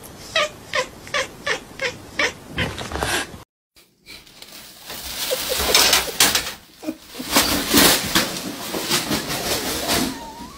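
A cat giving a rapid run of short, evenly spaced meows for about three seconds. After a brief silence a plastic bag crinkles and rustles for several seconds as cats play inside it.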